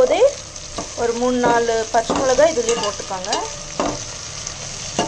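Slotted steel spatula stirring and scraping fried onions, coriander and mint around a stainless steel pot, with squeaky metal-on-metal scrapes and a few sharp knocks against the pot, over the steady sizzle of the frying oil.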